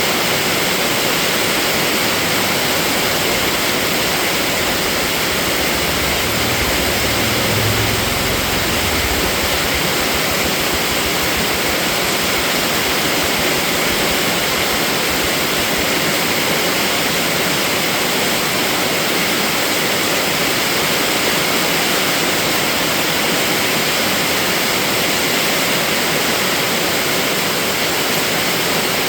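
Steady heavy rain falling, a dense, even hiss, with a brief low rumble about seven seconds in.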